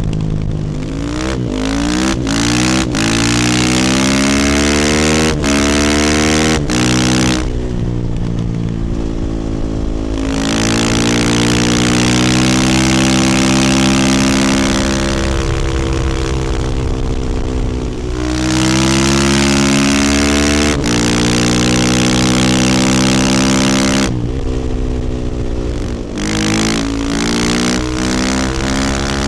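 Husqvarna FE450 supermoto's single-cylinder four-stroke engine through an Akrapovic exhaust, under way. It accelerates through quick upshifts, eases off about seven seconds in, then holds steady revs for long stretches, backs off again and pulls hard through the gears near the end.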